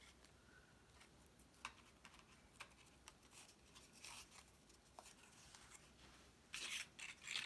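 Faint handling of cardstock paper pieces: scattered light taps and clicks, then a brief louder paper rustle near the end.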